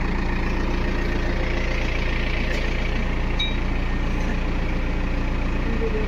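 Backhoe loader's diesel engine running steadily, its speed holding even.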